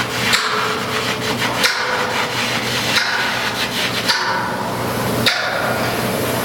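Loud construction banging: heavy hammer strikes repeating about once every second and a bit, over a steady hum and a continuous rasping noise.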